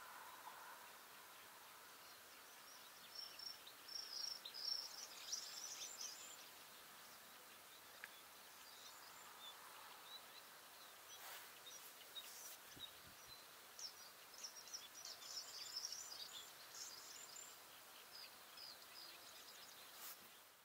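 Faint outdoor ambience with high, twittering songbird notes in two spells, one a few seconds in and another past the middle.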